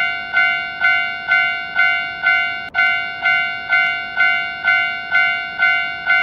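Japanese railroad crossing (fumikiri) alarm bell ringing: a steady, same-pitched electronic ding repeated about twice a second.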